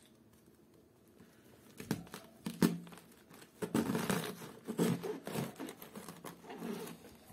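Kitchen knife slicing down through the crisp outer leaves of a whole white cabbage: a run of irregular crackling, crunching cuts starting about two seconds in.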